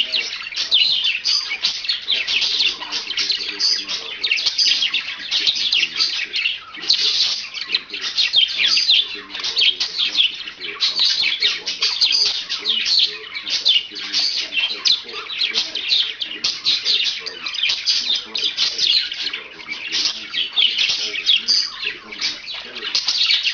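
Pet budgerigar warbling: a continuous, rapid stream of chirps, trills and chatter with no real pauses.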